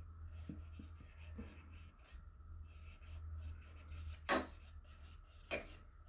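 Paintbrush dabbing and rubbing acrylic paint onto a stretched canvas, a faint scratchy brushing with a few soft taps, laying a second coat over the painted sand. Two brief, louder sharp sounds come about four and five and a half seconds in.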